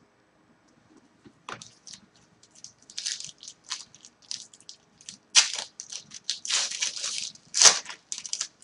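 Crinkling and rustling of a trading-card pack's wrapper being torn open and cards being handled, in irregular spurts with two louder crackles about five and a half and seven and a half seconds in.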